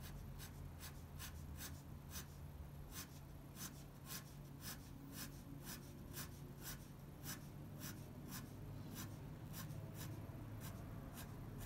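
Fine-tip drawing pen scratching across paper in quick, short hatching strokes, about three a second.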